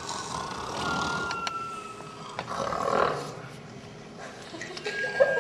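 Loud snoring, in long breaths swelling about every two seconds, with a thin steady high whistling tone over much of it.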